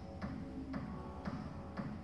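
Background music with a steady beat: a sharp click about twice a second over held notes.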